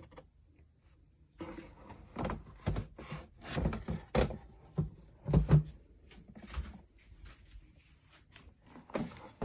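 Plastic globe of a Litter-Robot 4 being lifted off its base: a run of hollow plastic knocks, clunks and scraping for several seconds, then a few light clicks and a last knock.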